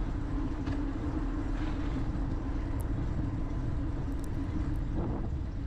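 Steady rumble and hiss of a bicycle riding over a brick-paved cycle path, picked up by a bicycle-mounted dashcam.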